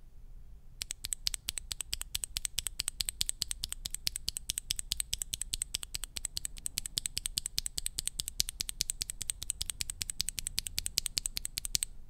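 Royal Kludge RK Red linear mechanical keyboard switch with an ABS keycap, held in the fingers and pressed over and over in a fast, even rhythm, several sharp clacks a second. The pressing starts about a second in and stops just before the end.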